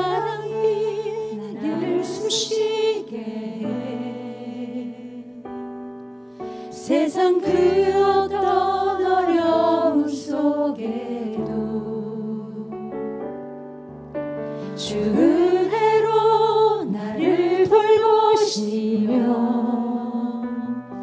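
A woman singing a Korean worship song into a microphone over sustained keyboard chords. She sings in phrases of a few seconds, and between them only the held chords sound.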